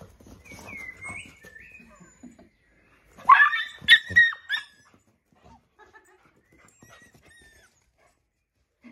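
Labrador puppy giving a burst of high-pitched yelping barks about three seconds in, lasting about a second and a half, as the two dogs play-fight. Before it comes quieter scuffling of play.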